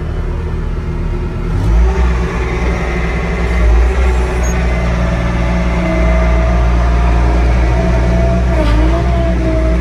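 Bobcat tracked skid steer engine running, throttled up about two seconds in, with a steady whine over the rumble that dips briefly near the end.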